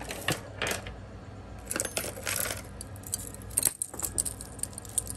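Costume jewelry being handled: beads and small metal pieces clicking, clinking and jangling, with several sharp clinks and a short rattle about two seconds in.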